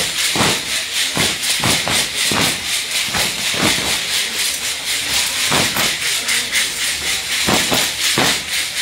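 Many sonajas, wooden dance rattles fitted with metal jingles, shaken together in time, making a continuous metallic jingling with a beat about twice a second.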